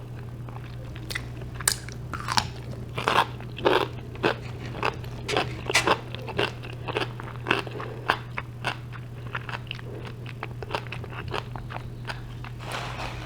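Close-miked chewing of a crunchy pickle, a crisp crunch about every half second, loudest in the first few seconds. A steady low hum runs underneath.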